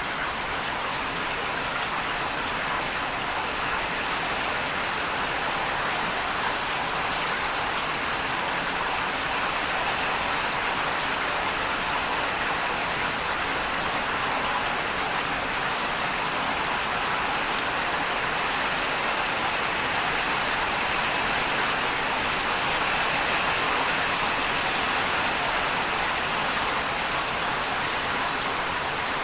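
Steady rain falling, an even hiss that holds at one level without breaks.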